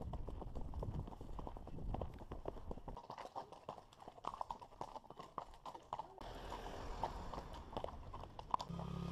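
Horses' hooves clip-clopping at a walk, softer on grass at first, then sharper clicks on a hard lane and paved road. Near the end a motorcycle engine starts running steadily.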